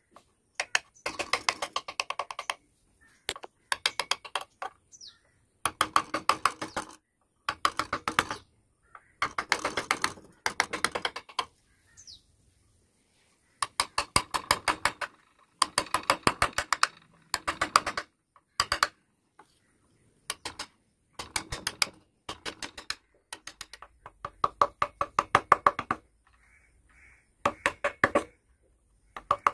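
Wood-carving chisel cutting into a wooden relief panel, making bursts of rapid sharp ticks, about ten a second, each burst lasting roughly a second with short pauses between.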